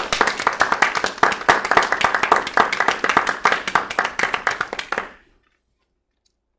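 Hands clapping in a quick, steady run that stops about five seconds in.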